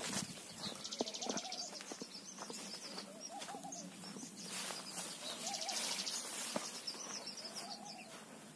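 Birds calling in forest: a low, wavering call repeated about every two seconds, with higher chirps over it. Insects give two short, fast-pulsing buzzes, about a second in and again near the middle.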